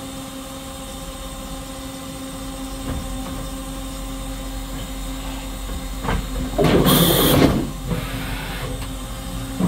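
Makino A55 horizontal machining center running its program: a steady machine hum, a click about six seconds in, then a loud burst of rushing, hissing noise lasting about a second.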